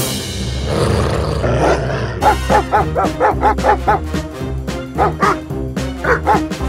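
Cartoon background music with a rushing, noisy sound effect over the first two seconds. After that come runs of short, pitched yelping cries, about five a second, in a few quick bursts.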